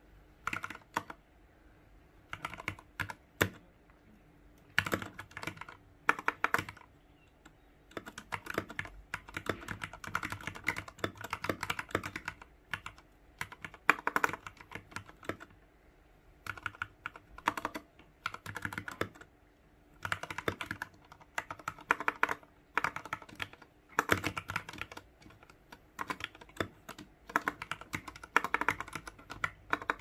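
Typing on an iKBC Poker II 60% mechanical keyboard with Cherry MX Red linear switches and PBT keycaps: quick runs of keystroke clacks in irregular bursts with short pauses between them.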